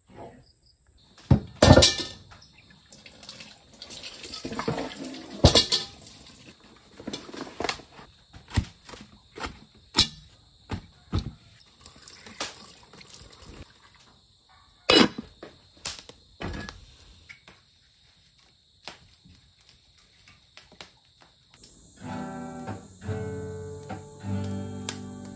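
Water pouring into a metal pot of bananas in a steel sink, with sharp knocks and clatter of the pot and fruit. About four seconds before the end, an acoustic guitar starts strumming chords.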